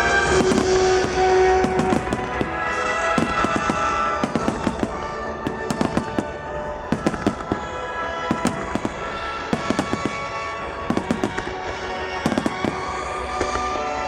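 Aerial firework shells bursting in quick, irregular succession, many sharp bangs crackling over one another, with music playing alongside.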